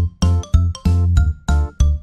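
Background music: short, evenly spaced notes, about three a second, over a bass line.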